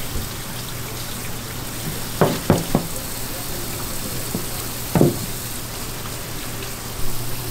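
Knife knocking on a cutting board, three quick knocks about two seconds in and one more near five seconds, over a steady hiss.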